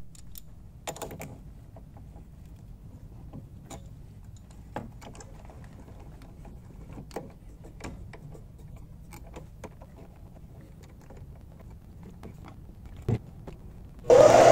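Scattered light metal clicks and taps as a knurling tool in a mini lathe's tool post is handled and set against the workpiece. Near the end, the mini lathe starts up suddenly and runs loudly with a steady whine.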